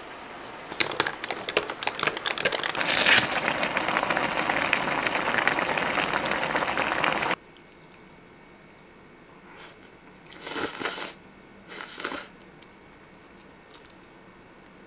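Sparkling water poured from a plastic bottle into a tall glass over ice and grape drink mix, fizzing and crackling as it foams up. It starts about a second in and cuts off suddenly about seven seconds in, followed by a few short, soft sounds around ten to twelve seconds in.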